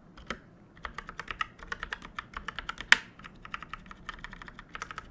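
Fast typing on a Redragon Yama mechanical keyboard with Outemu Purple tactile switches, a quick run of key clacks after a brief pause, with one much louder clack about three seconds in.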